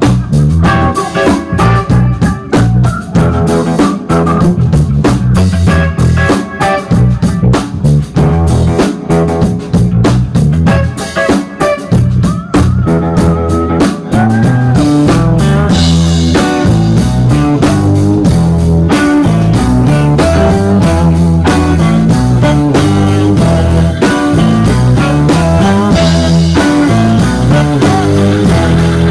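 Live instrumental band playing loud and close: electric guitar, electric bass and drum kit. The drumming is busy for the first half, then about halfway through it thins out and the guitar and bass hold longer notes over cymbals.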